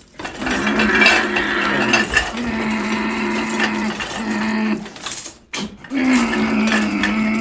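A person's voice making a long, steady droning hum with a hissing, spluttering noise over it, imitating a dishwasher running a wash cycle. It breaks off about five seconds in and starts up again.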